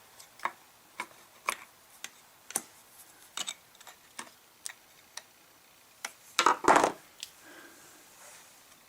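Light plastic clicks and taps, about two a second, from hands working the primer bulb fitting and fuel lines of an Echo CS-310 chainsaw. A louder scraping rustle comes about six and a half seconds in.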